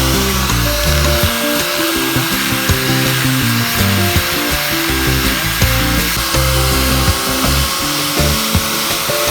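Background music with a moving bass line, over the steady high-pitched hiss of a small power tool working wood.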